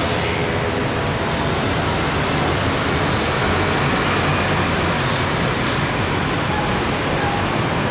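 Steady traffic noise from a dense mass of scooters and motorcycles, a continuous wash of many engines with no single vehicle standing out.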